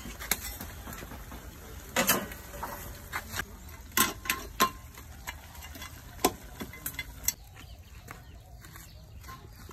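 Duck pieces frying in a large steaming wok with a steady sizzle, broken by sharp knocks and scrapes of a metal spatula against the wok. The sharpest knocks come about two, four and six seconds in. The sizzle settles to a steadier, quieter hiss after about seven seconds.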